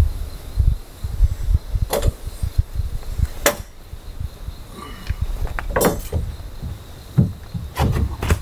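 Several sharp knocks and clicks, about six spread over eight seconds, over an uneven low rumble, with a faint steady high insect buzz behind.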